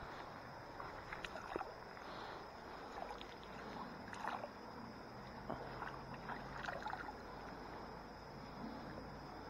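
Small water splashes and drips from a landing net being dipped into and lifted out of shallow creek water while a trout is released, a handful of short, sharp plops over a faint steady hiss.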